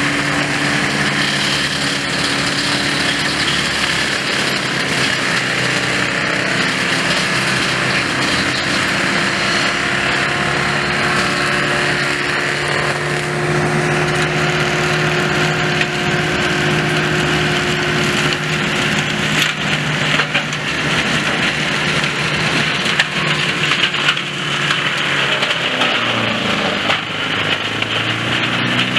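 Kraffter forestry mulcher on a tractor, running with its rotor shredding brambles and brushwood over the steady hum of the tractor engine. Cracking and snapping of wood grows denser in the second half, and the engine note sags and recovers near the end.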